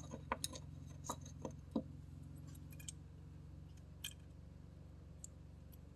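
Scattered light clicks and taps of small metal carburetor parts handled during reassembly of the float and its pin, over a low steady hum.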